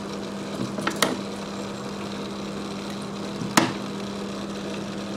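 A few short sharp clicks from hands handling a small tool and parts on a workbench: a pair about a second in, then a single louder one about three and a half seconds in. A steady low electrical hum runs underneath.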